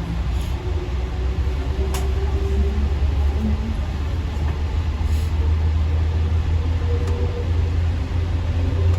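AirTrain JFK car running, heard from inside the carriage: a steady low rumble with a faint whine, and a few light clicks at about 2, 5 and 7 seconds in.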